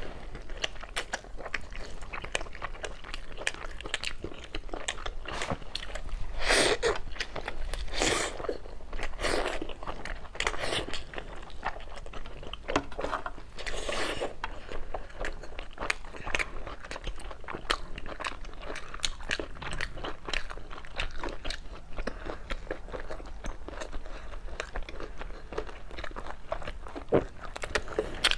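Close-miked mouth sounds of biting into and chewing braised pork belly and pork ribs: a steady run of short wet bites and chews, with louder bites around 6 to 9 seconds in and again about 14 seconds in.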